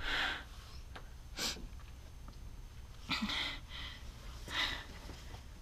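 A frightened person's short, breathy gasps and breaths, about five in a few seconds, with no words.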